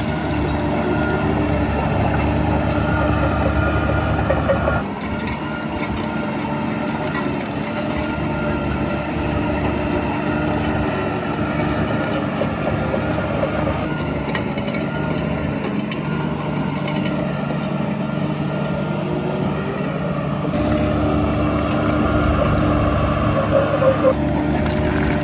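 Heavy diesel earthmoving machinery running steadily, a bulldozer and dump trucks at work. The engine sound shifts abruptly about five, fourteen and twenty-one seconds in.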